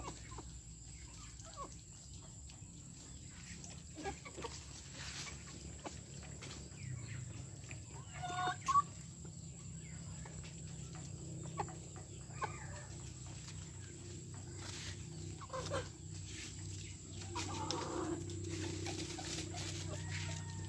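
Chickens clucking now and then in short, separate calls, the loudest about eight seconds in, over a steady low hum.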